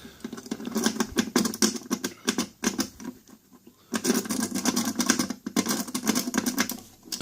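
Wafer lock being worked, a rapid run of light metallic clicks and rattles that stops for about a second midway and then starts again.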